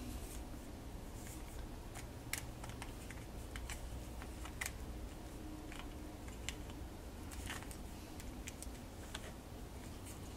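Scattered small clicks and crinkles of plastic bagging and a plastic bullet security camera being unwrapped and handled, over a faint steady low hum.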